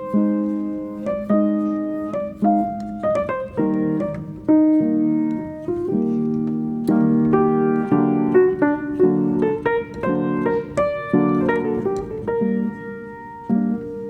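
Solo piano playing background music, chords and melody notes struck one after another and dying away.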